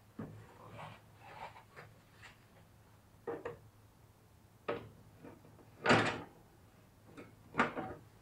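Several separate clunks and knocks from working the hood off a John Deere 317 garden tractor. The loudest comes about six seconds in, with another shortly before eight seconds.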